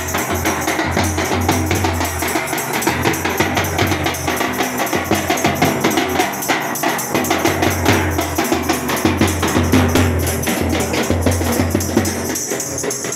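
Procession drumming: a large metal-shelled bass drum and a side drum beaten with sticks, with a rattling plastic hand clapper, keeping a steady, driving beat.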